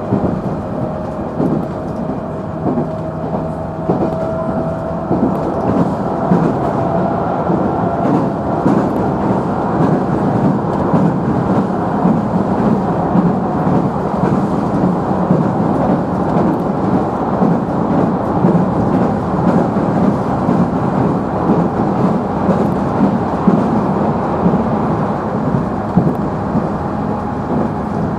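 Running noise inside the motor car of a JR Central 311 series electric train: a steady heavy rumble of wheels on rail. A motor whine rises slowly in pitch through the first dozen seconds as the train gains speed.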